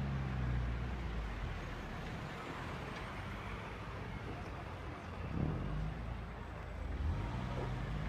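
Muffled thuds of distant fireworks over a steady outdoor rumble, with two soft thuds about five and a half and seven seconds in.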